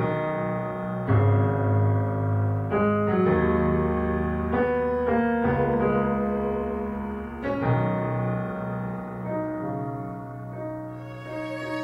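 Slow piano music: sustained chords, a new one struck every second or two.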